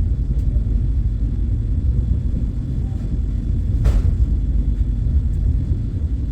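Steady low rumble of the Vande Bharat Express, an electric multiple-unit train, running along the line, with one brief knock about four seconds in.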